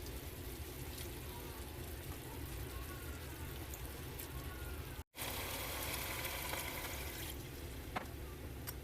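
Food sizzling as it fries in a pan, a steady hiss that cuts out for an instant about five seconds in and comes back louder for a couple of seconds. A few sharp clicks follow near the end.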